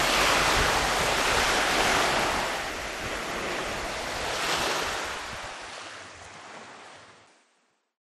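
Small sea waves washing up and drawing back over a pebble beach, swelling twice, then fading away near the end.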